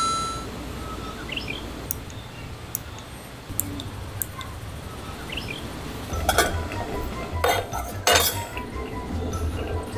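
Metal camping gear and tableware being handled: scattered light clinks and knocks, busier and louder in the second half, over steady outdoor background noise. A short beep sounds at the very start, and two brief chirps come in the first half.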